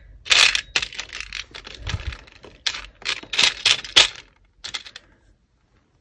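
Small costume-jewellery pieces clinking against each other and the plastic tub as a hand rummages through them: a run of sharp, irregular clicks that dies away after about five seconds.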